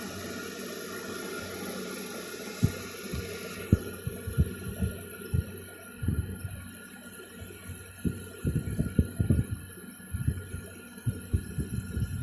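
Arctic King 5000 BTU window air conditioner running on low cool, a steady hum and airy hiss; the hiss drops away a few seconds in. Irregular low thumps come through from about two and a half seconds in, bunching up later.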